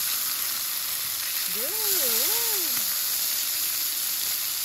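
Pork belly slices sizzling on a hot griddle pan, a steady frying hiss. About two seconds in, a short wavering whine rises and falls twice over it.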